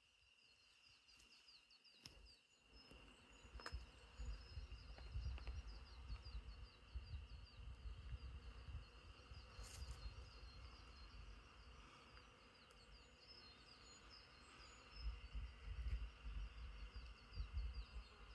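Faint outdoor ambience: a steady high insect drone with rapid repeated high chirps. A gusty low rumble of wind on the microphone comes in a few seconds in and grows stronger near the end.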